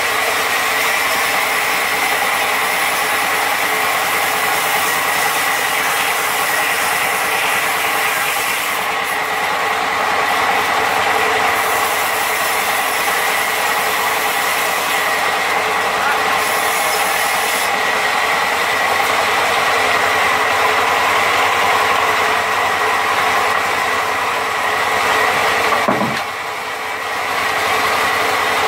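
Large log band saw running and cutting a log lengthwise: a steady mechanical drone with a high, even whine. The level dips briefly near the end.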